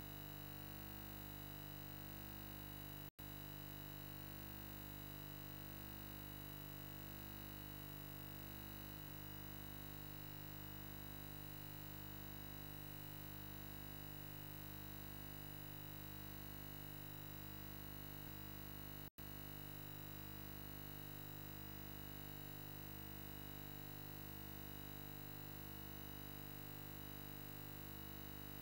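Steady electrical hum and hiss, a low buzz with a fixed pitch and no change, cut by two brief dropouts to silence about three seconds in and again about nineteen seconds in.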